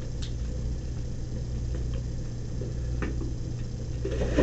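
Quiet room tone of an interview-room recording: a steady low hum with a few faint clicks.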